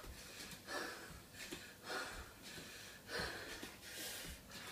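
Heavy, hard breathing from a person exercising, a loud breath about once a second, with faint thumps of feet stepping on the floor.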